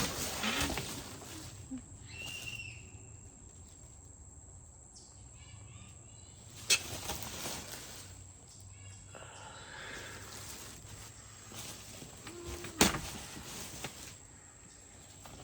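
Rustling and light clatter of items being handled and sorted, with two sharp knocks about six seconds apart.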